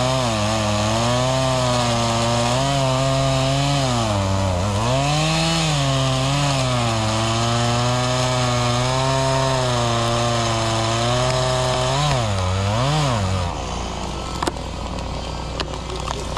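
Two-stroke chainsaw cutting through a grevillea trunk in a felling cut, its engine pitch sagging and picking up again under load. About 13 seconds in the pitch dips sharply twice and the engine cuts out as the saw is pinched in the cut, followed by a few sharp clicks.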